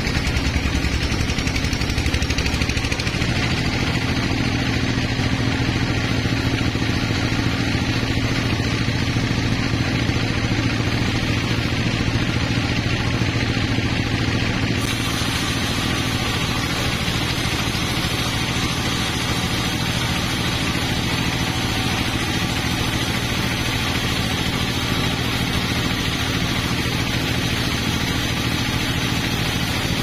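Band sawmill running steadily with no wood in the cut: the drive motor drones and the blade spins freely. About halfway through, the sound turns brighter and more hissy.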